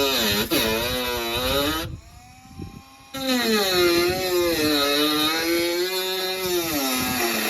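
Dremel rotary tool cutting rusted sheet steel out of a VW Beetle body panel, its high whine sagging and recovering in pitch as the cutting disc bites and frees. It stops briefly about two seconds in, then starts cutting again.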